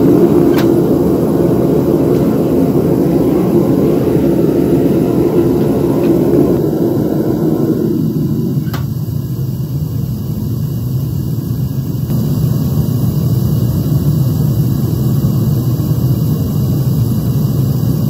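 Gas burner firing a homemade beer-keg foundry furnace: a steady roar of the flame inside the furnace, which settles to a deeper roar about seven or eight seconds in. A couple of faint clicks sound over it.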